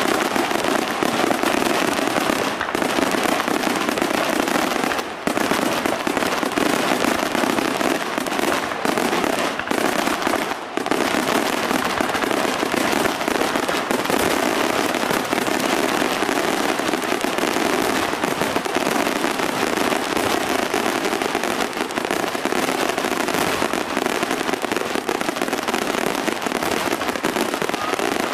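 Aerial fireworks display in a dense, unbroken barrage of bangs and crackling, so rapid they run together, with a few brief dips in the first eleven seconds.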